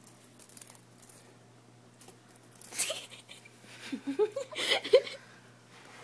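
Cicada buzzing in short rasping bursts as a cat paws at it: once about three seconds in and again, loudest, near five seconds. A few short squeaky rising and falling sounds come between the bursts.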